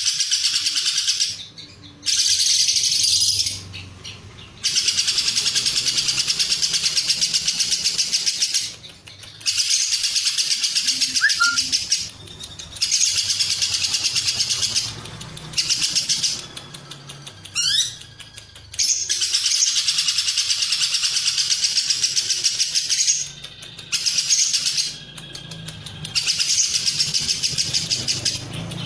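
Lovebird singing its long 'ngekek': a fast, rattling high chatter held for several seconds at a time, broken by short pauses, about eight bouts in all.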